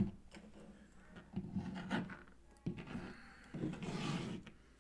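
Plastic action-figure packaging being handled: parts rubbing and scraping in a moulded plastic tray, with a longer rustle of the wrapping near the end.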